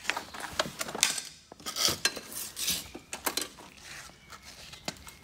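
Irregular metallic clinks, rattles and short scrapes as a removed steering column and steering wheel are handled and worked on by hand.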